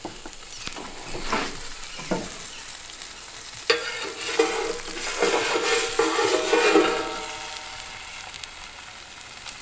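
Crackling and sizzling inside a wood-fired oven, with the glazed salmon cooking on birch bark. About four seconds in, a metal pizza peel scrapes across the oven's stone floor for about three seconds as the fish on its bark is pushed further in.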